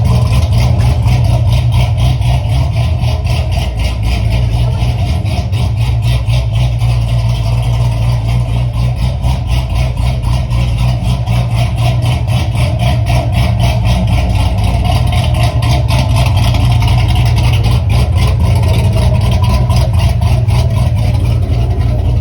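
Chevy engine idling steadily while it warms up to operating temperature.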